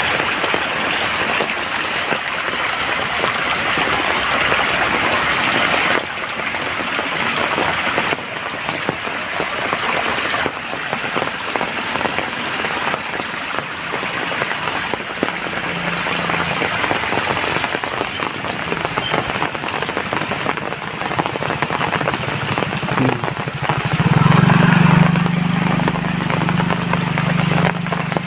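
Steady rain falling, a constant hiss. About halfway through, a low engine hum comes in and grows loud over the last few seconds.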